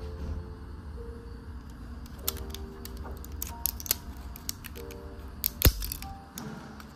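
Small sharp clicks and snaps of 3D-printed plastic tree supports being broken off a print by hand, with one louder crack near the end. Soft background music with held notes plays underneath.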